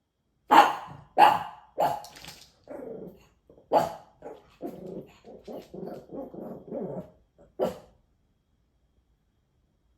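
A dog barking sharply three times in quick succession, then a run of short, lower grumbling sounds broken by another bark, and a final bark near the end.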